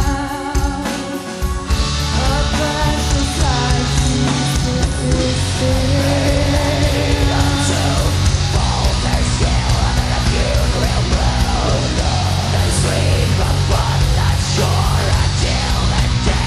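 Heavy metal band playing live: held notes over a lighter backing, then the full band with drums and distorted guitars comes in about two seconds in. Vocals sing over the band from about eight seconds on.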